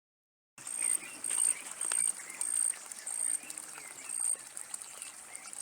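Rural outdoor ambience: a high, thin chirp repeated every half second or so, with faint scattered bird calls, beginning about half a second in.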